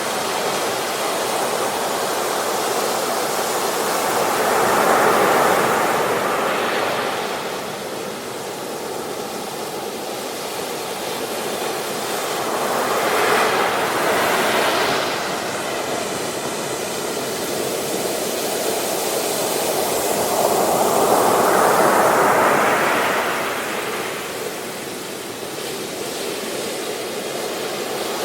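Ocean surf on a beach, waves rushing in and drawing back, with three swells about eight seconds apart.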